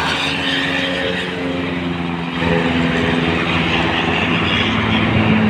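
Diesel engine of a passing intercity coach on a Mercedes-Benz OH 1626 chassis, a steady drone over tyre and highway traffic noise, its pitch shifting about two seconds in.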